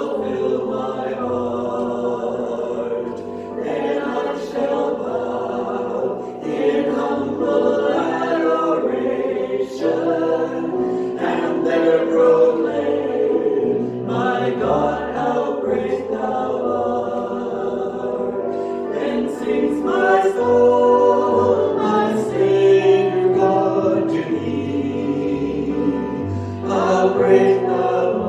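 Choir singing a hymn with instrumental accompaniment and a moving bass line.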